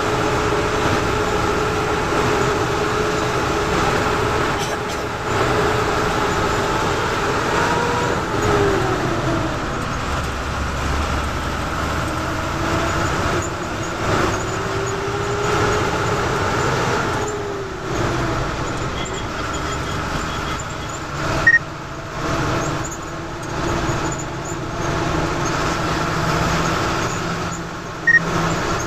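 Bus engine running and road noise heard from inside the cabin. The engine's whine rises and then drops twice, and there are two short sharp knocks in the last third.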